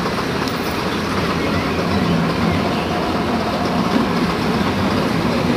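Diesel engine of an AEC Routemaster coach bus running steadily as the bus moves past, a continuous low drone.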